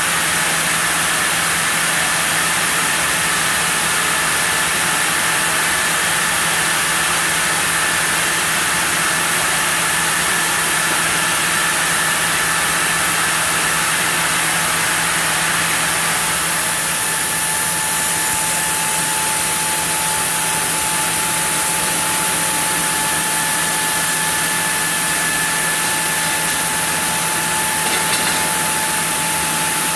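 Sawmill machinery running steadily: a constant mechanical drone with a low hum and a hiss of noise. A thin steady whine joins about halfway through.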